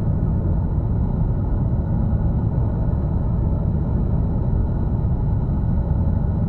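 Dark ambient drone music: a dense, steady low rumble with no beat or melody, and a faint thin high tone held above it.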